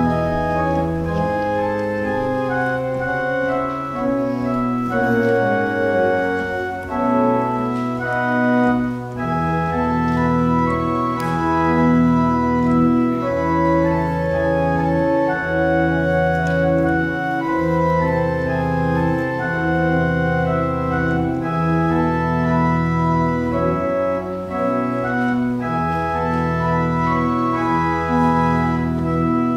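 Organ playing slow, held chords over a bass line that moves every second or two.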